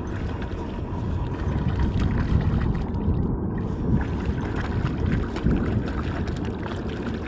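Wind rumbling on the microphone, a steady low rush with faint scattered clicks through it.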